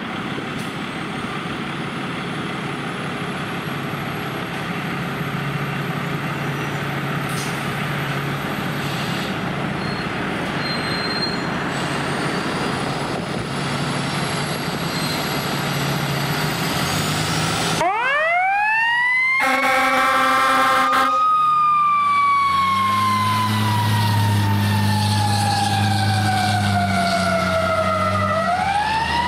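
Pierce fire engine's diesel running, then its siren winds up sharply about two-thirds of the way in, followed by a horn blast; the siren then falls slowly for several seconds and winds up again near the end while the engine pulls away under load.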